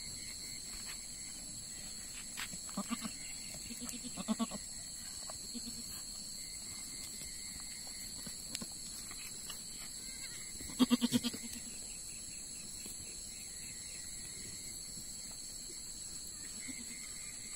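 Goats bleating: a few short, soft calls, then a louder wavering bleat about eleven seconds in.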